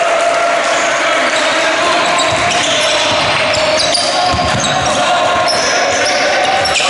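Basketball game play in a large gym hall: the ball bouncing on the wooden court, a cluster of thuds about four seconds in, with short high shoe squeaks from players running, over a steady hum.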